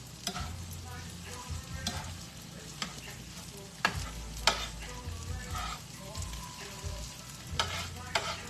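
Eggs with cheese sizzling in a skillet while a spatula stirs and scrapes them, with scattered clicks of the utensil against the pan.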